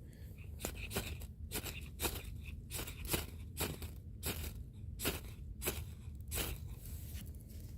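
A ferro rod struck again and again to throw sparks onto birch-bark tinder: about a dozen short, sharp scrapes, roughly one every half second to second, while relighting a fire that has just gone out.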